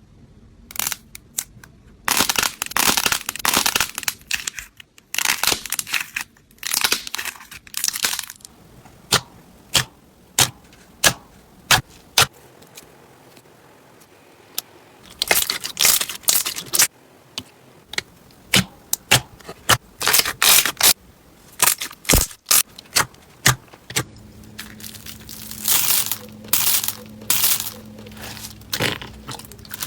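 Slime being squeezed and poked by hand, giving irregular sharp crackling pops and clicks, with a few longer crinkly stretches of a second or two.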